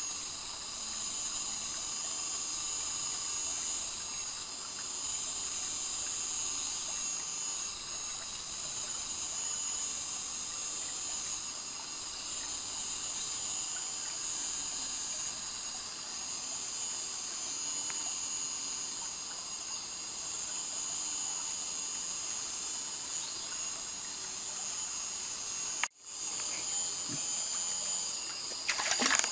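Steady, high-pitched chorus of insects in tropical forest, several unchanging shrill tones layered together. It breaks off for an instant near the end, and a short cluster of clicks and knocks follows.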